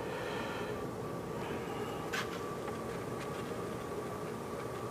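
Quiet room tone with a faint steady hum and one light tap about two seconds in.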